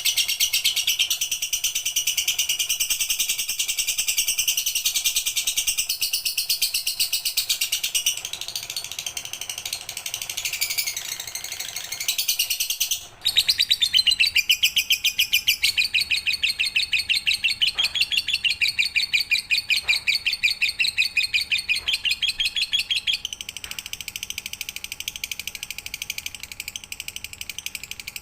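Lovebird singing a long, very fast, high-pitched chattering trill (the full 'ngekek' song), which breaks off sharply for an instant about 13 seconds in and then carries on.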